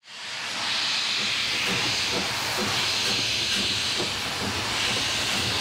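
Steady hiss of steam escaping from a steam locomotive, fading in quickly at the start.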